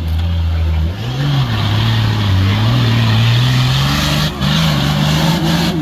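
Nissan Patrol's diesel engine revving hard under load as the 4x4 climbs out of a deep muddy rut, its note rising and falling over and over.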